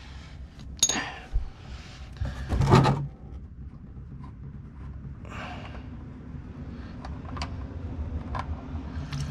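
A few sharp metallic clinks and clatters of tools and parts being handled under a truck during an oil change. The loudest comes about three seconds in, with lighter clicks later over a faint steady low hum.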